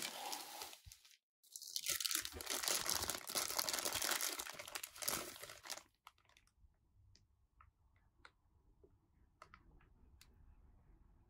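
Clear plastic packaging bag crinkling densely as it is handled, in two spells split by a short pause about a second in. In the second half only scattered light clicks remain as small hard plastic figure parts are handled.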